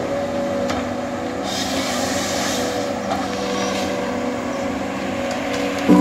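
John Deere 1470G wheeled forestry harvester's diesel engine running steadily as the machine moves through the stand. A short patch of hiss comes about a second and a half in.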